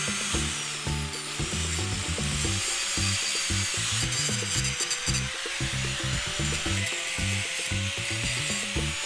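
A power tool working wood, with a faint wavering whine, over background music with a steady beat.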